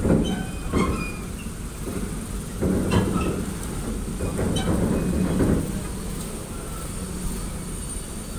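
Steady low rumble of ferry machinery with irregular heavy metal clanks and knocks, the loudest near the start and around three and five seconds in.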